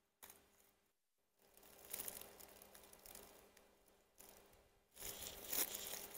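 Footsteps crunching and rustling through dry oak leaves and leaf litter, irregular and louder near the end.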